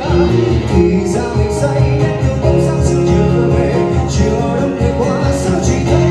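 Music with guitar playing loudly through a Bang & Olufsen wireless speaker under sound test.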